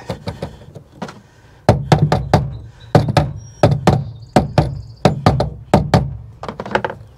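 Rubber mallet tapping a Ford BoxLink tie-down cleat into its steel bed bracket. After a few light clicks of the cleat being fitted, the mallet strikes begin about two seconds in and come in quick runs, about three or four blows a second. The cleat is a tight fit, and the blows work it up into position in the bracket.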